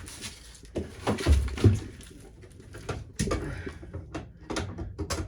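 Hand-tool work on a copper line fitting: irregular knocks, clicks and scraping as channel-lock pliers grip and twist at it, with two heavy thumps about a second and a half in.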